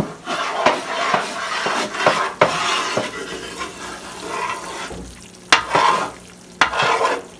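A metal spoon scrapes and stirs a pale flour-and-oil roux across the bottom of a large metal pot. The strokes are repeated and irregular, with a few sharp clinks of the spoon against the pot. The roux is being kept moving constantly so it browns without burning.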